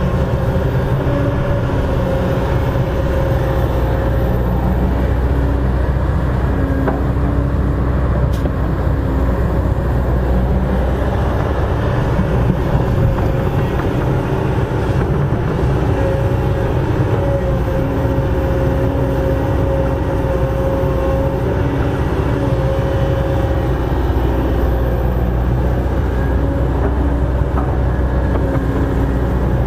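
Kobelco SK200 crawler excavator's diesel engine running steadily under working load as it digs and slews. A hydraulic whine rises in and out with the arm and bucket movements.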